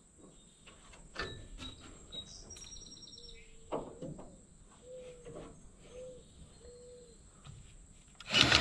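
Quiet outdoor background with a few faint clicks, short bird chirps and some soft short tones. Just before the end, a loud, rapidly pulsing machine sound starts abruptly.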